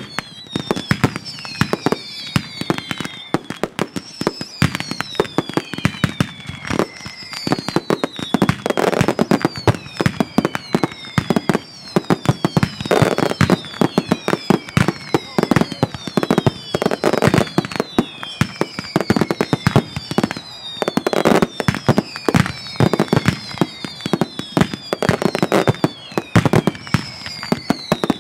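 Mascletà barrage: a dense, continuous run of loud firecracker bangs, swelling in louder clusters every few seconds. Whistling fireworks add falling whistles that repeat about every two seconds.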